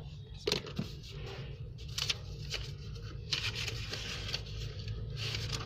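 Rustling and crinkling with light clicks as small packaged paper goods and plastic wrappers are handled and sorted, over a low steady hum.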